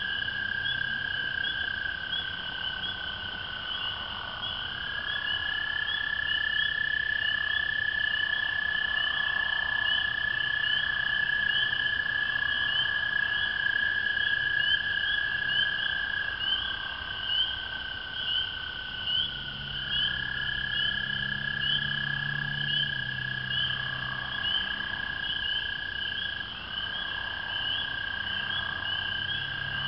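Night frog chorus: American toads give long, steady musical trills lasting several seconds each, one toad taking over as another fades slightly lower in pitch. Under them runs a continuous chorus of spring peepers' high, rising peeps, with a few brief, lower calls mixed in.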